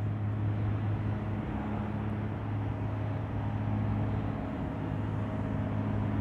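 Steady low hum with an even hiss beneath it: the room's background noise, with no distinct event standing out.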